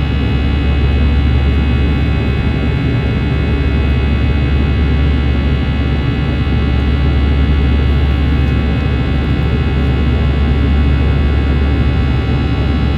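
Airbus A321-211 cabin during the climb after takeoff, heard from a window seat beside the wing: its CFM56 engines running steadily, a deep hum under a layer of steady, high engine tones.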